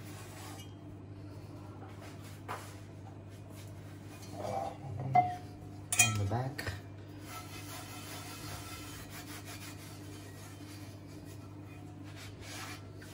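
Cloth quietly rubbing over a Lodge cast iron skillet as it is wiped dry, with two sharp knocks of the heavy pan against the counter about five and six seconds in as it is lifted and tipped. A steady low hum runs underneath.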